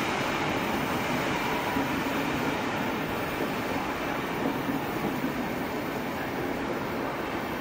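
Snälltåget night-train passenger coaches rolling past along the platform: a steady rumble of wheels on rails.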